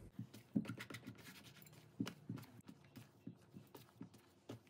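Hands kneading soft chapati dough: faint, irregular squishes and light knocks, a few a second.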